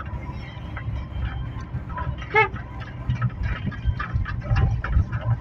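Cabin noise inside a moving car: a steady low road and engine rumble with frequent small rattles and clicks. A short pitched sound comes about two and a half seconds in.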